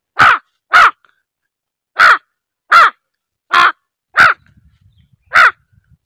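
A man imitating a crow with his voice: seven short caws, mostly in pairs with pauses between.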